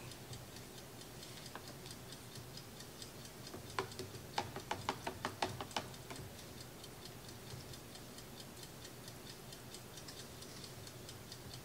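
Metal spoon clinking against the glass carafe of a French press while stirring ground coffee into cold water for cold brew, a run of quick clinks about four to six seconds in. Faint rapid ticking underneath.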